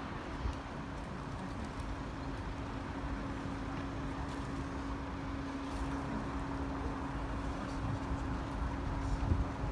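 A vehicle engine running steadily, a constant low hum with one held tone over a rumbling background.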